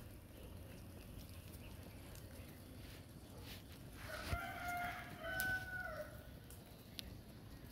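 A rooster crowing once, a single call of about two seconds that starts about four seconds in, over a low steady background. A few sharp taps come from pigeons pecking grain off the ground.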